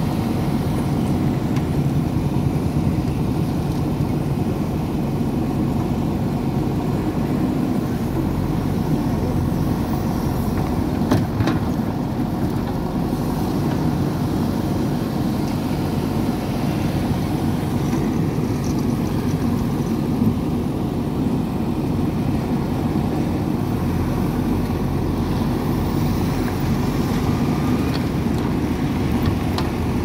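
JCB 3DX backhoe loader's diesel engine running steadily as the backhoe arm digs and swings soil, with a single brief knock about eleven seconds in.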